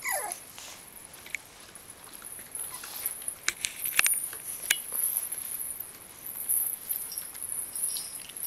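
French bulldog puppies chewing and pawing at toys: scattered sharp clicks and clinks, the loudest about halfway through, with a short falling squeak at the very start.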